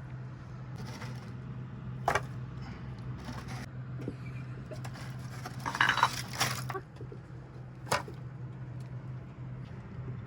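Dishes and cutlery clinking during a meal: a sharp clink about two seconds in, a cluster of clatter around six seconds and another clink near eight seconds, over a steady low hum.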